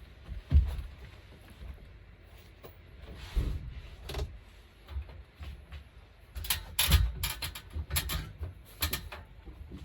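Irregular knocks and clicks of hands-on work, with dull thumps early and a run of sharp clicks and taps in the second half.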